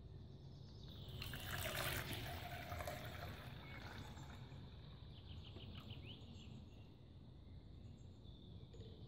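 Water pouring from a plastic bottle into a metal mug. The splashing is loudest for about two seconds, starting a second in, then quieter.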